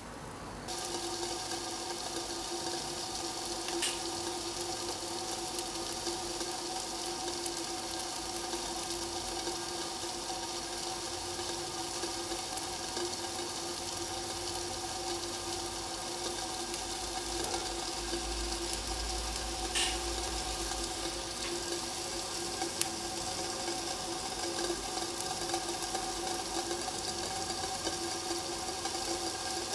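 Steam hissing from a homemade tin-can aeolipile (Hero's engine) as the water in it boils over a small flame: a steady hiss with faint steady tones and a few light clicks, starting suddenly just under a second in. The steam jets are weak, too slow to turn the can, which the maker puts down to its tubes being too wide.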